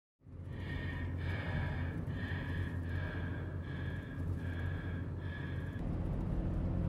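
Steady low rumble of a car driving, heard from inside the cabin. Over it runs a string of about eight short high-pitched tones, roughly one and a half a second, which stop near the end.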